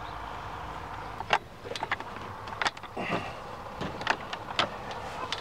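Sharp metal clicks and knocks, about eight spread over a few seconds, as the ultralight trike's metal mast fittings are handled and fitted to the wing, over a steady low hum.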